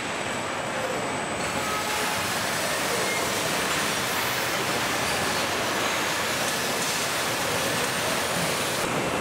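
Steady, even noise of a car assembly plant floor: machinery and air handling running together with no distinct knocks or tones, the hiss growing brighter about a second and a half in.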